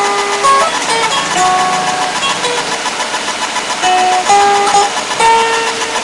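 Solo acoustic guitar played note by note: a slow melody of plucked single notes, many left to ring on.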